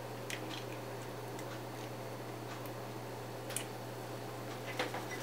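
Quiet room tone with a steady low hum and a few faint, sparse clicks as a cracked egg is emptied into a glass bowl.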